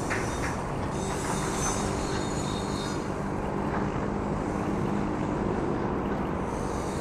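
Distant Boeing C-32 (757) twin-jet on final approach, its engines making a steady rumble.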